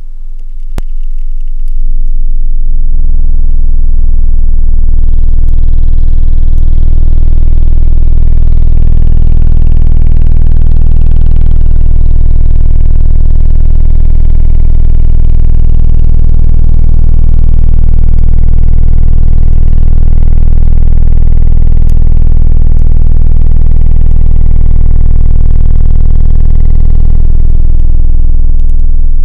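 Alpine SWX-1043D Type X 10-inch subwoofer in a sealed box pounding out a very loud, deep sustained bass note. It swells in over the first few seconds, shifts pitch a few times in the first dozen seconds, then holds steady before fading out near the end.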